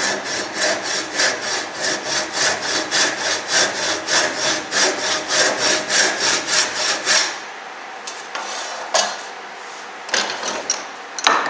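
Tenon saw cutting a shallow kerf across the end grain of a pine block held in a vise, in quick, even strokes of about four a second, stopping after about seven seconds. A few sharp knocks come near the end.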